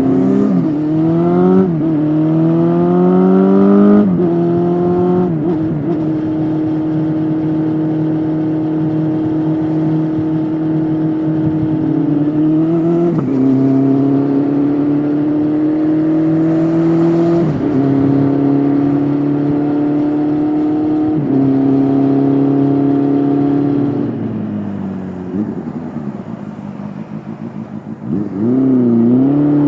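Honda CB400SF inline-four engine through a Yoshimura slip-on exhaust, accelerating hard through several quick upshifts, then cruising with slow rises in pitch and further gear changes. Near the end the throttle closes, the note falls and quietens, and then it revs up sharply again.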